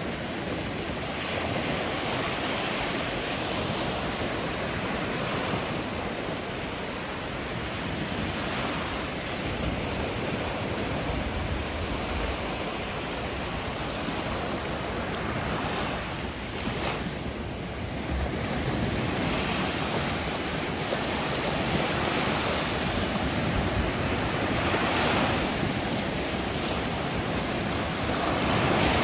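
Sea surf washing onto the shore, a continuous rush of water that swells and eases every few seconds as waves come in, with wind rumbling on the microphone.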